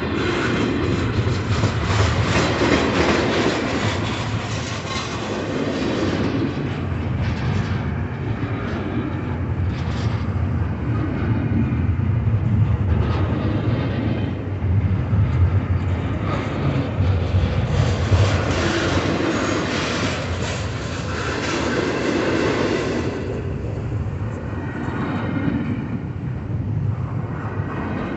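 CSX double-stack container train passing at close range: a steady rumble of steel wheels on the rails, with clickety-clack as the wheels of the container well cars roll by, swelling and easing in waves as the cars go past.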